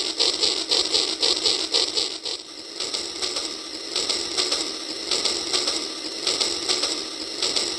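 Battery-powered toy steam locomotive running along plastic track, its motor, gears and wheels giving a rapid, even clicking. The clicking thins for a moment about two and a half seconds in, then picks up again.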